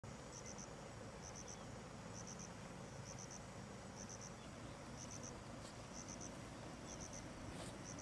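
An insect chirping in high-pitched triplets, about one triplet a second, over faint steady outdoor background noise.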